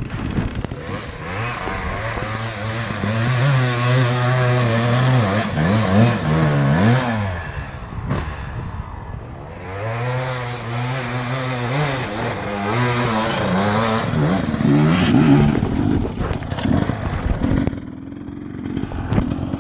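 Two-stroke dirt bike engine being ridden hard, its revs climbing and dropping again and again as it goes through the gears, in two runs with a short easing-off between them.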